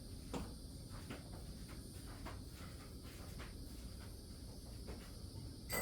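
Faint, steady chirring of insects, with scattered light clicks and knocks and a sharper click near the end.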